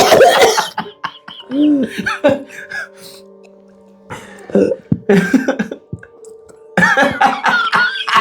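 A person coughing and gagging in several bouts with pauses between them, over background music with held tones.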